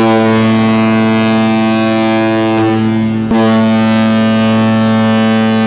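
Ship's horn sounding a long, loud, steady low blast, with a brief break and click about three seconds in before the blast goes on.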